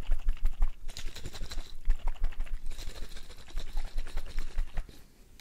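Rapid, irregular tapping of fingers on small glass bottles, one partly filled with liquid. The tapping dies down about five seconds in.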